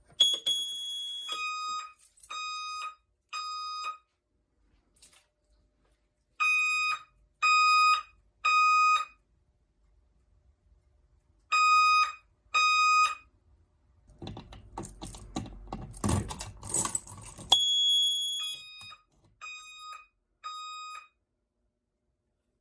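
Fire alarm sounder pulsing a three-beat temporal pattern: three tones about a second apart, a pause, then again. A higher steady tone about a second long comes just before the first and last sets. A few seconds of loud handling or clattering noise fall between the middle and last sets.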